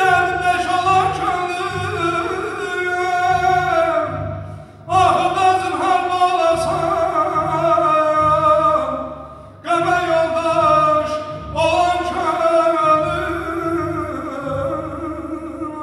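A man singing a song with orchestral accompaniment, in long held phrases whose pitch wavers and bends, with short breaks for breath about five and ten seconds in.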